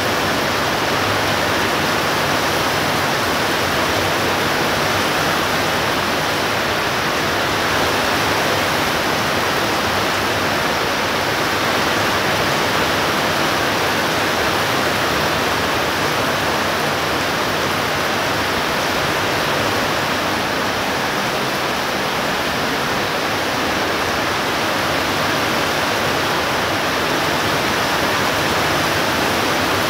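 Heavy thunderstorm rain pouring down in a dense, steady hiss.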